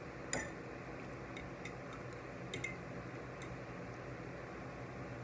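Metal fork clicking against a plate a handful of times, the sharpest click near the start, some with a short ring, over a steady low room hum.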